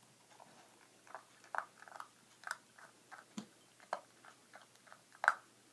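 Six-week-old golden retriever puppy crunching dry kibble, with irregular crisp crunches several times a second; the loudest comes about five seconds in.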